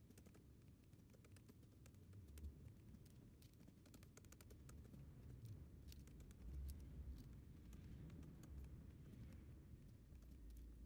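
Near silence: faint, quick clicks and light taps over a low hum.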